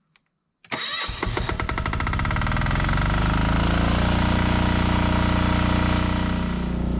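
Portable 220-volt generator engine starting up: it catches suddenly about a second in, its pitch rising as it runs up to speed, then runs steadily, dipping slightly near the end.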